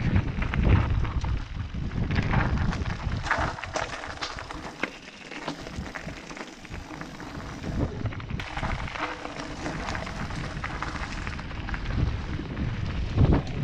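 Mountain bike riding down a loose gravel trail: wind rumbling on the microphone, with tyres on gravel and the bike rattling in quick clicks and knocks. The wind eases off in the middle, where the rattle stands out.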